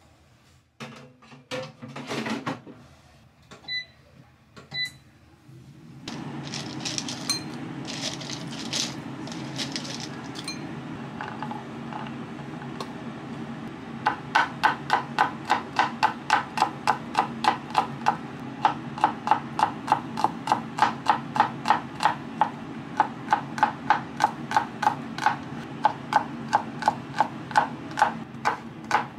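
Air fryer basket knocking into place and the fryer's control beeping twice, then the air fryer running with a steady low hum. From about halfway, a chef's knife chops garlic on a wooden cutting board in fast, even strokes, about three a second.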